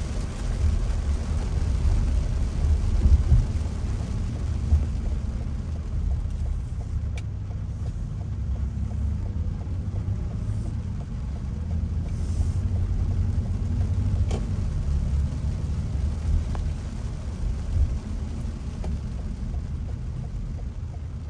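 Steady low rumble of a car's cabin while driving on a rain-soaked road, with a few faint ticks scattered through it.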